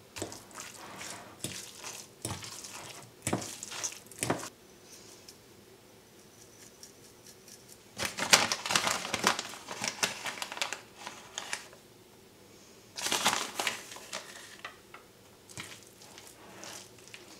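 Kitchen handling sounds from making burger mix: a spoon tapping and clicking against a bowl and a sauce bottle, then a paper flour bag crinkling loudly twice as a spoon scoops from it, and a fork scraping as the mince is stirred in a ceramic bowl near the end.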